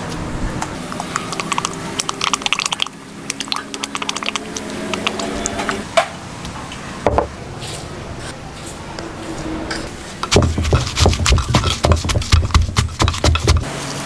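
Salt and sugar spooned into a wooden mortar over chopped chilies and eggplant, with small ticking and pattering of granules. About ten seconds in, a run of loud, rough squishing and spattering as a lime is squeezed by hand into the mortar.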